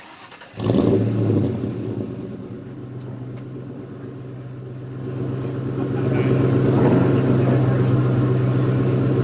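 A 4.6-litre two-valve V8 breathing through an off-road H-pipe with no catalytic converters and a Borla Stinger cat-back exhaust. The engine catches with a loud flare about half a second in, then settles into a steady idle, which grows louder from about five seconds in while its pitch holds.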